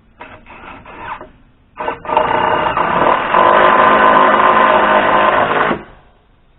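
A handheld power tool's motor: a few short trigger pulls, then a steady run with a whine for about four seconds that stops abruptly, as when a screw is driven home.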